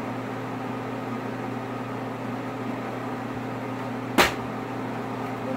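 A steady low electrical hum, and about four seconds in a single sharp clack as a thrown plastic water bottle lands.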